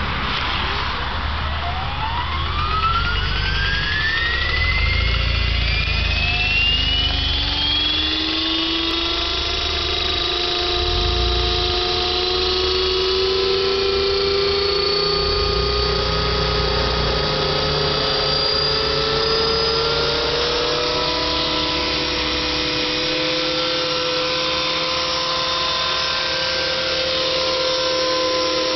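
Align T-Rex 450 electric RC helicopter spooling up: the motor and rotor whine rises smoothly in pitch over the first twenty seconds or so, then holds at a steady pitch as the helicopter hovers.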